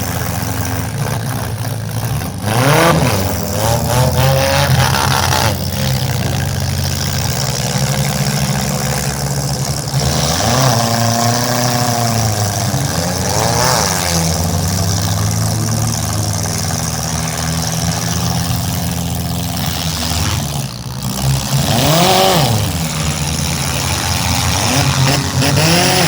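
Demolition derby cars' engines running with a steady low drone, revved hard several times so the pitch climbs and falls back.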